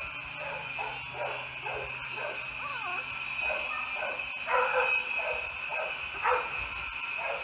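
A litter of puppies whining and yipping in many short, high calls that slide up and down, with louder yelps a little past halfway and again near the end.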